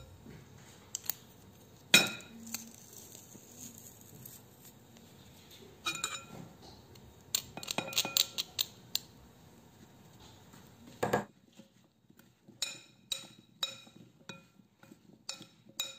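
Sharp metal clicks and clacks from a garlic press being worked over a glass bowl. In the last few seconds a metal spoon clinks against the glass bowl about twice a second, each clink ringing briefly, as cubed zucchini is tossed in flour and spices.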